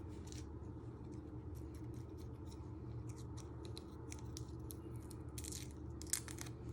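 Dry garlic skin crackling as fingers peel it off the cloves: light papery ticks and rustles throughout, with a sharper click about six seconds in. A steady low hum runs underneath.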